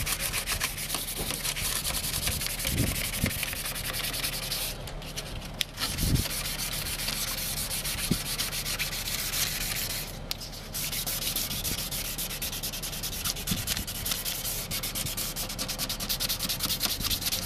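Folded 600-grit wet sandpaper rubbed rapidly back and forth by hand over a plastic headlight lens, smoothing out the scratches left by a coarser sanding block. The strokes stop briefly twice, about five and about ten seconds in.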